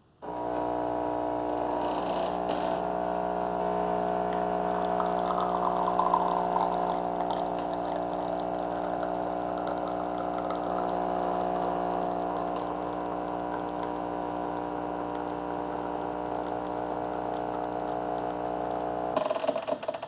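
Miele C5200 espresso machine brewing an espresso shot: its pump runs with a steady hum that starts suddenly and cuts off about a second before the end.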